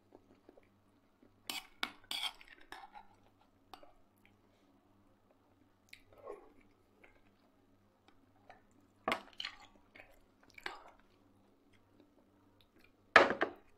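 Metal spoon scraping and clinking inside a glass jar of marinated bean-and-vegetable salad, with fork clicks against a frying pan and chewing between them. The loudest is a sharp knock near the end.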